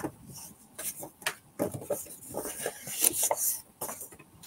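Cardstock and paper being handled and slid across a craft mat: irregular rustles and light clicks, busiest about three seconds in.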